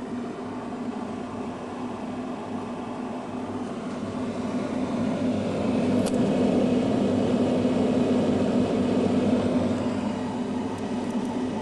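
Steady mechanical hum of a freezer running, a low drone that swells somewhat in the middle.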